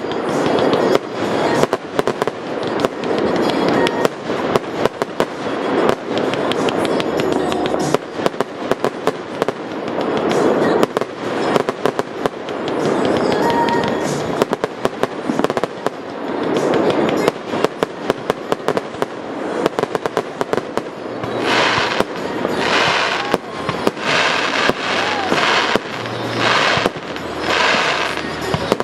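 Aerial fireworks firing shot after shot in quick succession: a dense stream of pops and crackling bursts that swells in waves every few seconds. In the last several seconds the crackle turns brighter and higher, in pulses.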